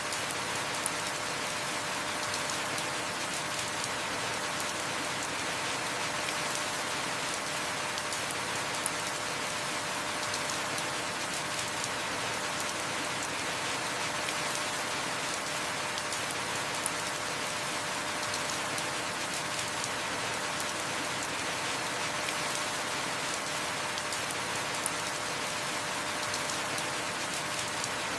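Steady heavy rain falling, an even hiss of drops on surfaces, with a short sharp tick about every eight seconds.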